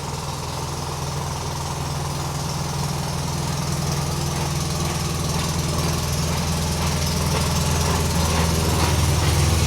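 A small engine running steadily with a low, even drone, growing slowly louder.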